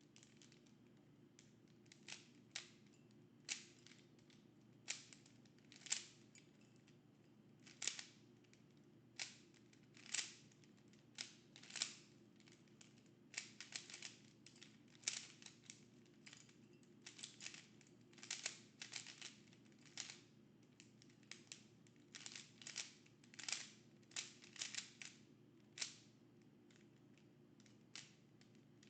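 Plastic Rubik's Cube being turned by hand. The layers click sharply, sometimes singly and sometimes in quick runs of several turns, with short pauses between. A faint steady hum lies underneath.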